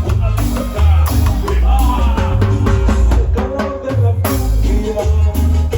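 Latin dance music with a heavy, pulsing bass line, drums and shaken percussion.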